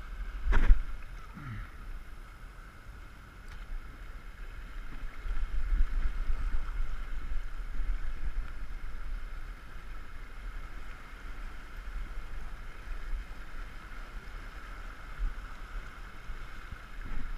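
Sea water washing and churning over rocky shore ledges, with wind rumbling on the microphone and swelling louder for a few seconds midway. A single sharp click about half a second in.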